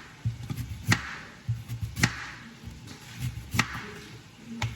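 Knife chopping on a cutting board: a few sharp knocks roughly a second apart, with softer thuds in between.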